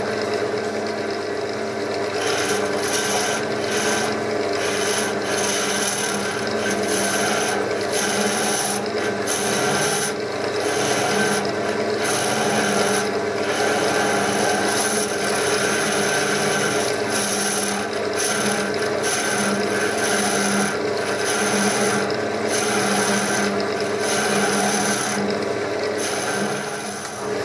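Wood lathe running with a steady hum while a tool rubs and rasps against the spinning chestnut wood, the scraping coming and going in strokes.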